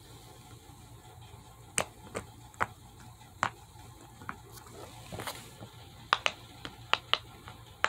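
Silicone pop-it fidget toy being pressed, its bubbles popping: about a dozen sharp, separate pops, sparse at first and coming quicker in the second half.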